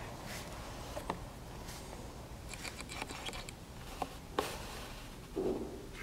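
A large steel socket clinking and scraping against a removed wheel bearing's hub as it is set into the bore and lifted out: a few sharp metal clicks, the loudest about four and a half seconds in, then a short dull thump near the end.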